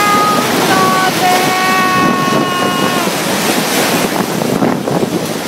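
Tropical storm wind: a loud, steady rushing noise, with wind buffeting the microphone. Over it a high, level wailing tone with overtones sounds in a few long notes and stops about three seconds in.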